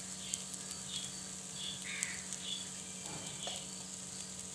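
Oil sizzling softly around fried paniyarams in a non-stick kuzhi paniyaram pan, with small crackles. Short bird calls repeat every half second or so in the background.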